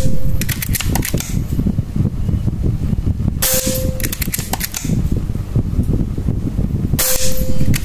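Three shots from a silenced Marauder OD38 air rifle, about three and a half seconds apart, each a short sharp burst of released air, followed by a few quick clicks and clanks as pellets strike the steel spinner targets. A steady low background noise runs underneath.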